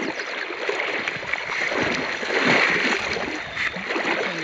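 Flowing river water around a wading angler, with splashing from a hooked trout thrashing at the surface during the fight.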